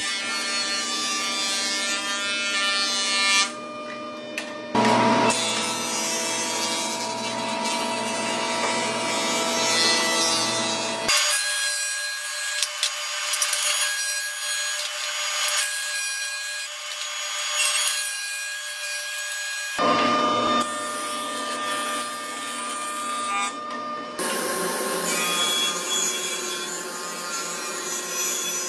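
Woodworking power tools machining boards, heard as a series of short clips that change abruptly: a jointer's cutterhead whining as a board is pushed across it, and a table saw ripping a board lengthwise.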